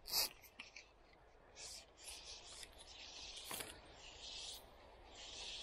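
Fly line whooshing through the air on a final cast once, about a quarter second in. This is followed by faint, patchy rubbing and rustling of the line being handled and drawn in.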